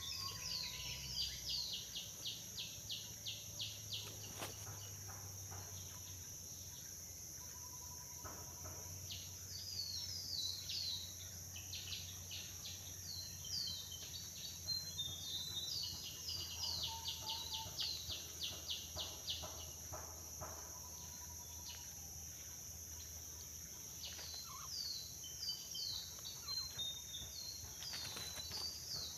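Tropical forest ambience: a steady high-pitched drone of insects, with a bird repeating short falling notes and fast trills in several bouts.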